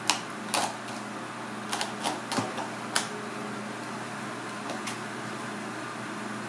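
Kitchen knife cutting and chopping through a lionfish's head on a plastic cutting board: a run of sharp knocks and crunches over the first three seconds and one more near five seconds, over a steady hum.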